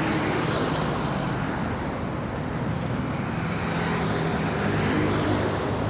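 Motor vehicle running, a low engine hum under steady road and wind noise.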